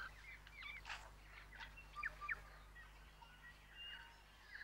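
A tui singing faintly: scattered short whistles, a few clicks and quick up-and-down notes, with gaps between phrases.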